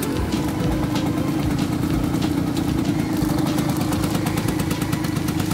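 Suzuki 80's two-stroke single-cylinder engine idling steadily at an even pitch.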